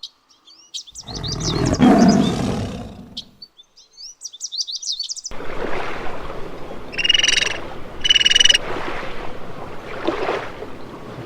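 Wild animal calls: a loud roar about a second in, and a long rough stretch of calling from about five seconds with two short high calls in it. Quick bird chirps come near the start and again around four seconds.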